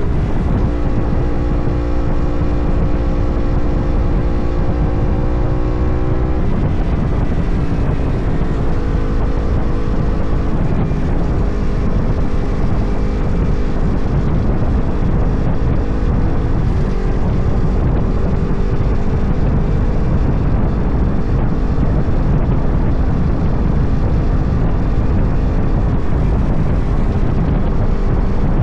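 Motorcycle engine running at a steady cruise, its pitch stepping down about six seconds in and changing again about seventeen seconds in, over a heavy rumble of wind on the camera microphone.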